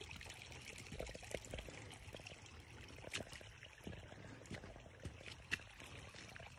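Quiet footsteps on a dirt trail, a scatter of light crunches and scuffs over a steady faint rushing hiss.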